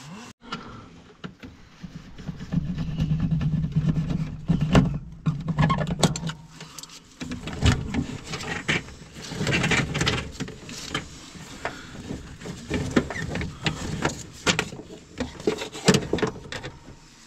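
Vehicle mechanical sounds from a Ford Transit 2.5 diesel: a steady low motor hum for about five seconds, then irregular clattering and knocks.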